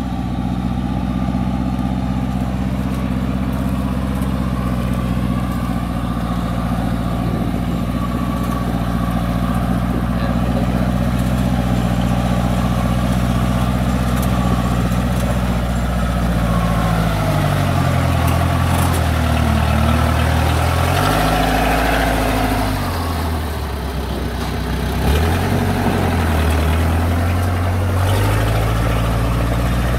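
Engine of a tracked rice-hauling carrier loaded with sacks, driving through a flooded paddy. It runs at a steady speed for about half the time, then its engine speed repeatedly rises and falls.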